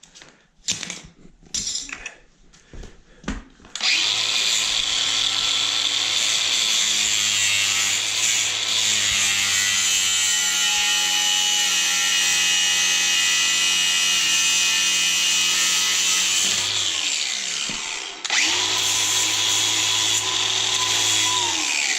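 Power drill running to tighten a hose clamp snug around a flexshaft. A few clicks and knocks come first, then one long steady run that winds down, a short pause, and a second run of a few seconds.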